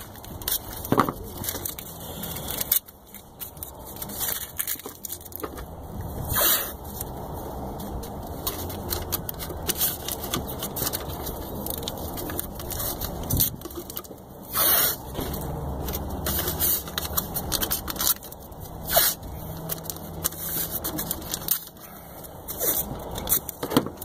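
Blue painter's tape being pulled and torn off the roll and pressed down, in crackling rips and scrapes. The loudest rips come about six, fifteen and nineteen seconds in.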